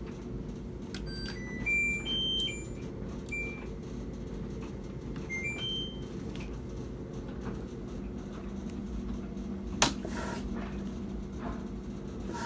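Samsung washing machine's control panel beeping. A short run of stepped electronic tones comes about a second in and a shorter one about five and a half seconds in, over a steady low hum. A sharp click comes near ten seconds in.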